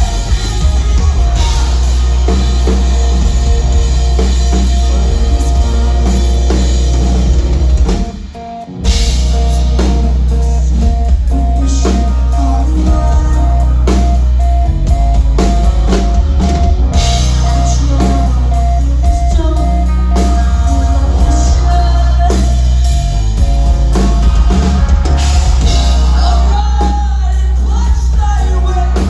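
Live rock band playing loud: drum kit, guitars and singing. About eight seconds in the band stops dead for under a second, then crashes back in.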